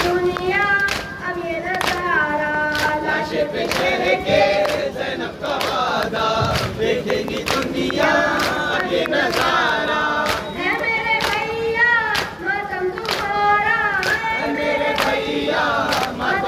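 A group of men chanting a nauha, a Muharram lament, in unison, with the steady slap of hands beating on chests (matam) keeping time at about two strikes a second.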